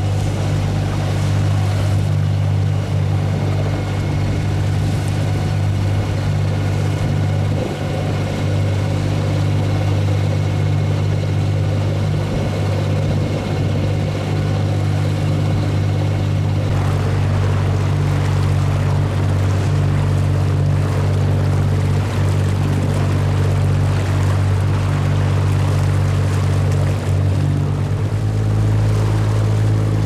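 Boat engine running at a steady pace, with the rush of water and wind growing about halfway through. The engine note changes near the end, as the engine speed changes.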